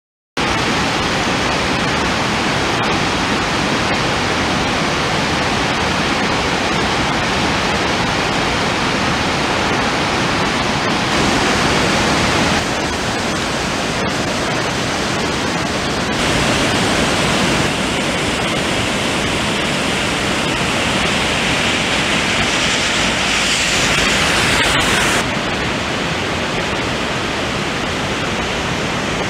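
Rushing floodwater: a loud, steady, even noise of fast-flowing water, stepping up or down in level a few times.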